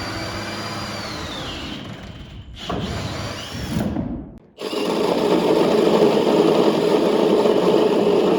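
Power tool motor running in three spells: it winds down with a falling whine about a second and a half in, stops briefly twice, then runs steady and loud from about halfway through.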